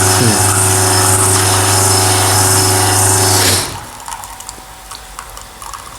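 Shurflo water pump feeding an Elektra espresso machine, a steady loud buzz while the shot runs, cutting off suddenly about three and a half seconds in. Faint light clicks follow.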